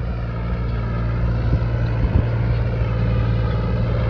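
Swaraj 855 tractor's three-cylinder diesel engine running steadily under load while pulling an 8x8 disc harrow through dry ploughed soil, growing slightly louder.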